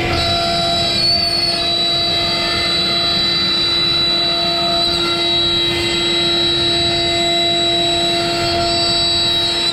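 Avid CNC router spindle running with a steady high whine while its 1/8-inch downcut spiral bit cuts a slot into a wood panel, over a steady rushing noise.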